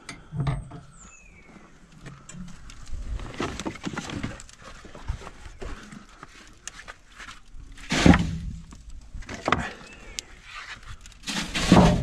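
Steel door of an outdoor wood furnace unlatched and opened, and slabs of scrap wood tossed into the firebox onto the coals: a series of knocks and wooden clatters, the loudest about eight seconds in and again just before the end.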